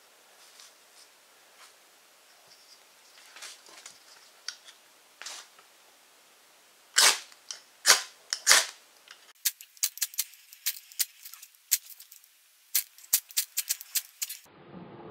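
Ferrocerium rod scraped hard with a knife, throwing sparks onto fatwood shavings. After a few light scratches come three long loud strokes, then a fast run of short, sharp scrapes in the second half.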